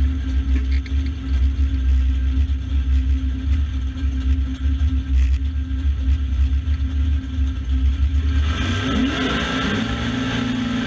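Drag car engine idling with a heavy, uneven rumble, then about eight and a half seconds in it revs up and holds high as the wet rear slicks break loose and spin in a burnout.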